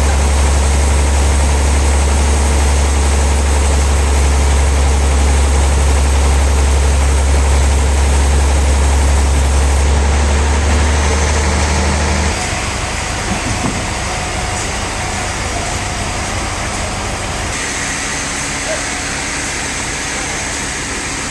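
Heavy engine running steadily with a strong low hum. About twelve seconds in the hum drops away, and a quieter, steady machine noise carries on.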